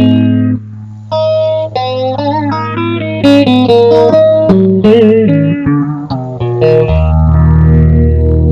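Electric guitar played through a multi-effects unit: a melodic line of single notes, some bent or wavered in pitch, ending on a held low note.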